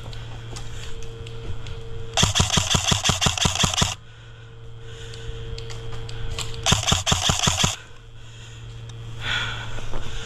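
Airsoft electric gun firing two full-auto bursts, a rapid string of sharp cracks about two seconds in lasting nearly two seconds, then a shorter burst past the middle.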